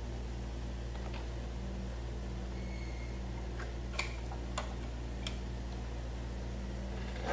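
A steady low electrical hum, with three light clicks a little past the middle.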